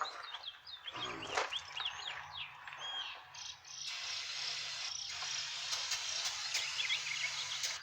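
Aerosol carburetor cleaner sprayed into a throttle body: a steady hiss starts about four seconds in and lasts about four seconds. Birds chirp throughout.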